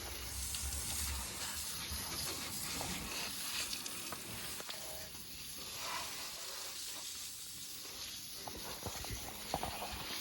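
Water spraying onto a Cub Cadet lawnmower, a steady hiss and spatter as the spray washes grass and mud off it.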